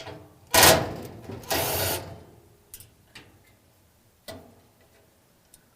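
Screws being taken out of the metal guard cover over an electric dryer's heating element: a short loud burst of tool noise about half a second in and a longer one around a second and a half, then a few light clicks as the metal parts are handled.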